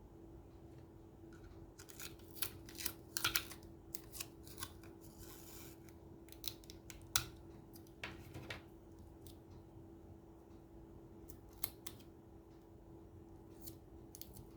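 Paper being handled and worked: scattered crisp clicks and crackles in short clusters, with a longer brushing rustle about five seconds in, over a faint steady hum.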